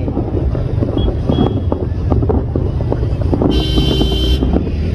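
Distant fireworks bursting in a string of short pops over a steady rumble of wind on the microphone. About three and a half seconds in, a steady high tone sounds for about a second.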